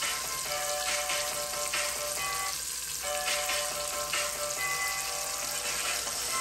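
Chopped garlic sizzling steadily in melted margarine in a stainless steel pot, frying as it slowly turns golden brown, with background music playing over it.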